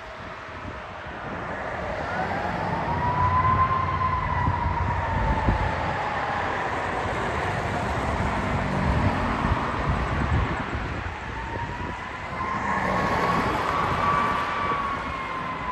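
Fire truck siren wailing, slowly rising and falling twice, over the low rumble of the truck and road traffic.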